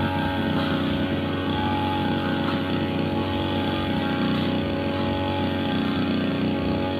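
Two-stroke brushcutter engine running steadily at high revs.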